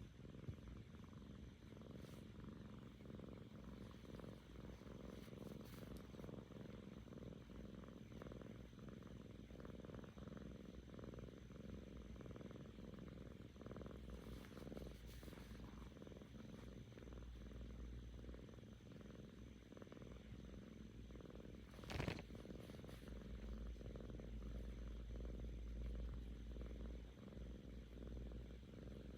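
Seven-month-old Korean shorthair kitten purring steadily and close up, a contented purr that could pass for snoring. A single brief knock about three-quarters of the way through.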